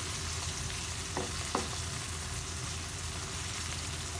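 Sliced red onions sizzling in hot oil in a frying pan while being stirred with a wooden spatula, with two light knocks a little over a second in.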